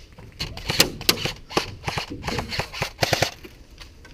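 Airsoft gunfire: a dozen or so sharp cracks and snaps in irregular bursts, three coming close together a little after three seconds in.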